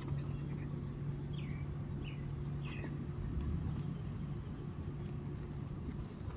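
Steady low mechanical hum, like an idling engine or running machinery, with a few short high chirps about one and a half to three seconds in.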